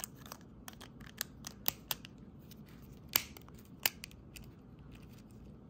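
Plastic shell halves of a Honda key fob clicking and tapping as they are pressed and worked together by hand: a run of scattered sharp clicks, two louder ones a little past the middle. The case is not snapping shut, which the owner puts down to the displaced buttons inside.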